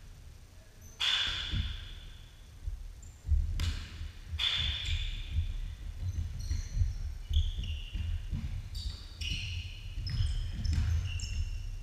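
Basketball being dribbled on a hardwood gym floor in repeated low thumps, with sneakers squeaking in short high chirps. Two sharp knocks, about one and three and a half seconds in, ring on in the large echoing hall.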